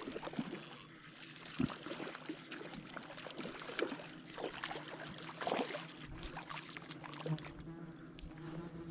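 Water lapping and trickling close by, with many small irregular clicks and splashes, a few a little louder.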